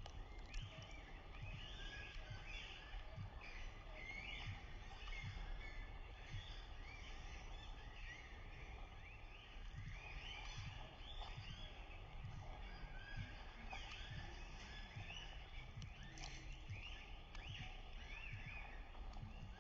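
Wild birds calling: many short chirps overlapping throughout, over a low rumble and thumps of wind or handling on a phone microphone.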